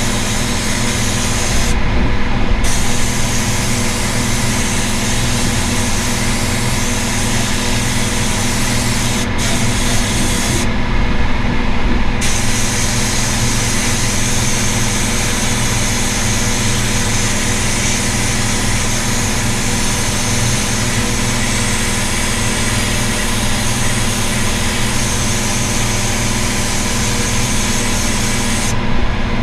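Paint spray gun hissing steadily as paint is sprayed, over the constant hum of a running motor; the hiss stops briefly several times, about two seconds in, around nine seconds, for about a second near eleven seconds and near the end, while the hum carries on.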